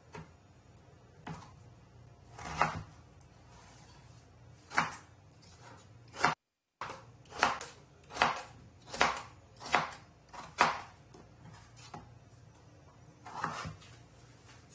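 Kitchen knife cutting raw peeled potatoes into small cubes on a cutting board: a few separate strikes, then a run of about five cuts roughly one a second, and one more near the end.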